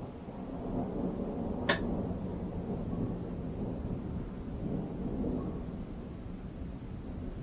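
Thunder rumbling low and rolling, swelling twice, with a single sharp click a little under two seconds in.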